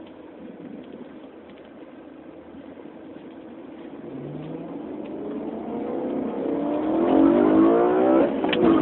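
Car engine and exhaust, running through catless off-road pipes into the stock mufflers, growing louder over the second half as the car accelerates, with a brief break in the note near the end.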